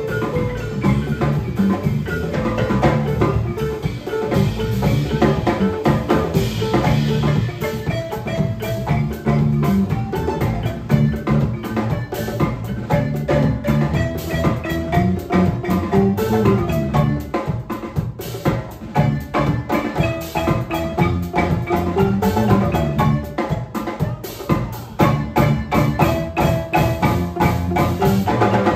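Live band music led by a large wooden xylophone struck with mallets by two players, over a drum kit, electric bass and guitar and a djembe, in a busy steady groove.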